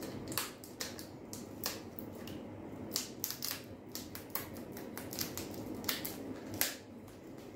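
Wire cutters snipping through stiff plastic blister packaging: a string of irregular sharp snips and crackles of the plastic.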